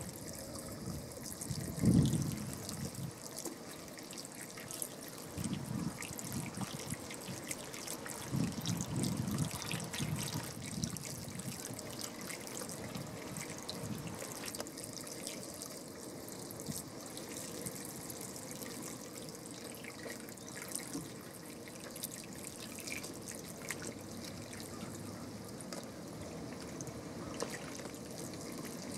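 Water trickling and swirling at the surface around a drinking West Indian manatee's snout, a steady running-water sound with a few louder surges about two seconds in and again around eight to ten seconds in.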